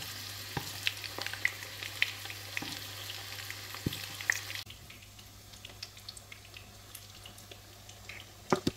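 Small batter-coated shrimp fritters frying in a pan of hot oil, sizzling with scattered crackles and pops. About halfway through the sizzle drops away sharply to a faint hiss, with a couple of clicks near the end.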